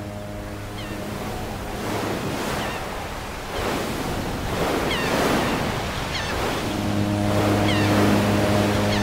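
Sea waves washing in slow swells, with a gull calling briefly several times. About two-thirds of the way in, a ship's horn starts a steady, deep blast.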